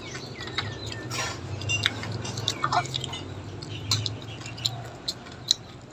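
Chopsticks and spoons clicking and clinking against stainless-steel bowls in short, scattered taps, with chewing.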